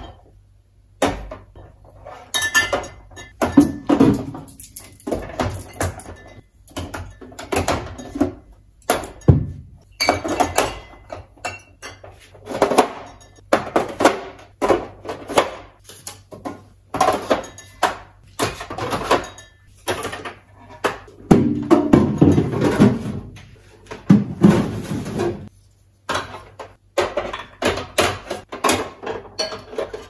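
Bottles, jars and containers clinking and knocking at irregular intervals as they are set back onto fridge shelves, with background music.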